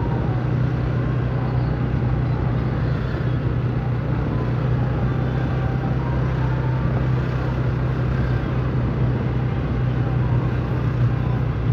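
A vehicle engine running steadily: a constant low drone under an even rushing noise, with no change in pitch or level.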